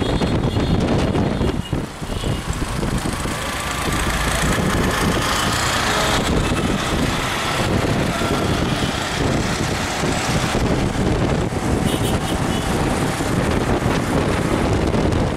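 Steady road and engine noise from a car driving in busy city traffic.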